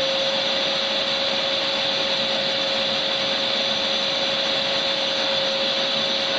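Electric vacuum cleaner running steadily: a continuous rushing hiss with one unchanging motor whine beneath it.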